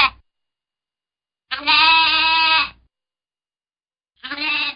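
Bleating: long, wavering animal bleats with dead silence between them. One bleat ends just after the start, a full one comes about a second and a half in, and another begins near the end.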